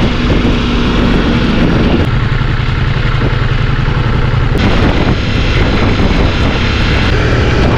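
Ducati Multistrada V4S's V4 engine running under way with wind rushing past; the engine note drops to a lower pitch about two seconds in and changes again a little after halfway.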